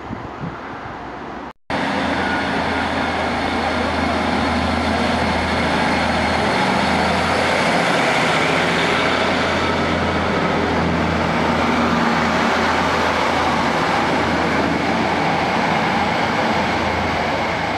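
After a brief dropout about a second and a half in, a Class 156 diesel multiple unit runs loudly and steadily alongside the platform: a low diesel engine drone with a broad hiss over it.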